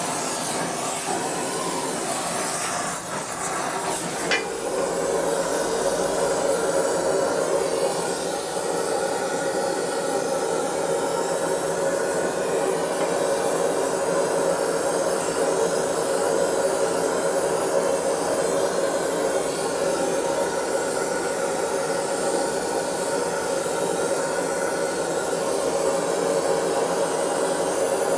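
Gas torch flame hissing steadily as it heats an aluminium motorcycle primary housing's bearing bore. There is a sharp click about four seconds in, after which the flame sound is steadier and a little louder.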